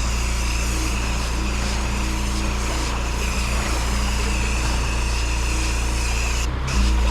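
Fuel-powered pressure washer engine running steadily under the hiss of its high-pressure jet spraying block paving. Near the end the spray stops for a moment and the engine gets louder.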